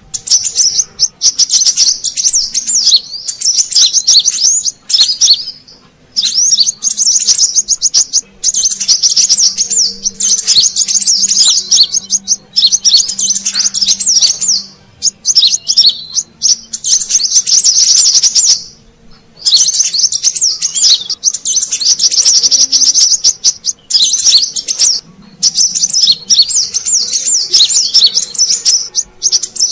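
Brown-throated sunbirds twittering: fast, high, busy strings of chirps in bursts of a few seconds with short breaks between them. This is a lure call for trapping wild sunbirds.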